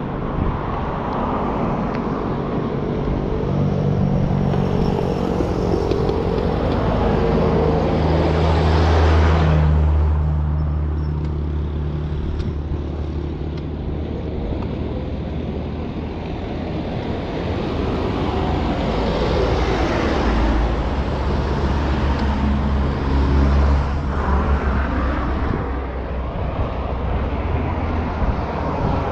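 Road traffic: cars passing with engine hum and tyre noise that swell and fade. The closest pass peaks about nine seconds in, and another vehicle passes around twenty seconds in.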